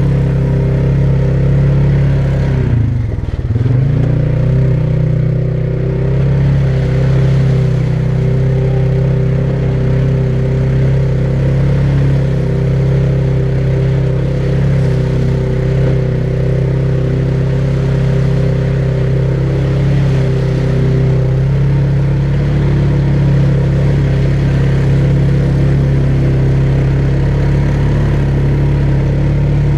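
ATV engine running at a steady speed. Its note drops briefly about three seconds in and comes back up.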